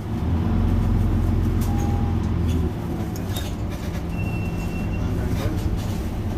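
Mercedes-Benz Citaro C2 Hybrid city bus's diesel engine running with a steady low hum, stepping down to a quieter level between two and three seconds in. A short high beep sounds about four seconds in.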